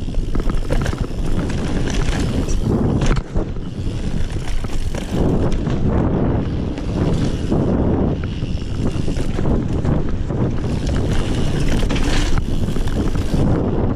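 Giant Trance Advanced 1 full-suspension mountain bike riding fast down a dirt trail: tyres rolling and skidding on loose dirt, with the bike rattling and clattering over bumps. Heavy wind noise buffets the action camera's microphone throughout.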